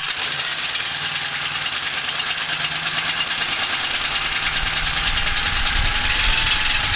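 Generator engine running steadily with an even, rapid firing rhythm, just after catching with a boost box on its starter; the owner suspects a weak battery.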